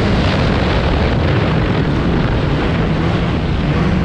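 Polaris Switchback Assault snowmobile running steadily while being ridden along a trail, with wind noise on the microphone.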